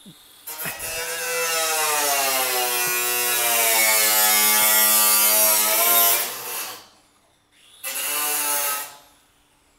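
A handheld power tool runs for about six seconds. Its whine sags in pitch through the middle and climbs back, then it runs again for about a second near the end.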